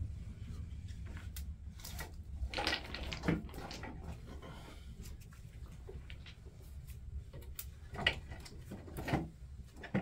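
Wood fire crackling in a small clay wall hearth, with scattered snaps over a low steady rumble. Louder knocks and rustles a few seconds in and again near the end as sticks are pushed into the fire.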